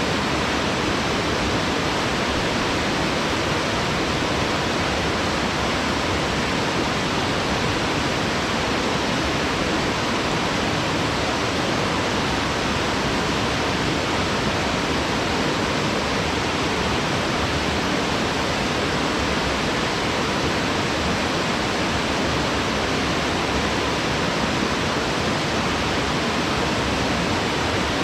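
Waterfall pouring steadily into a wide plunge pool, a constant even rush of falling water.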